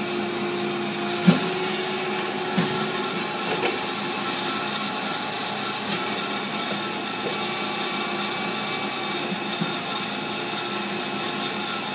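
Amada HA-250W automatic horizontal band saw running in automatic mode, cutting short pieces off bar stock, with a steady mechanical hum. A couple of sharp clunks come in the first three seconds, the second followed by a short hiss.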